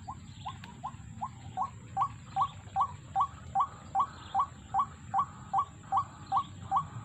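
Bird call: short upward-sweeping notes repeated evenly, about two and a half a second, growing louder about two seconds in.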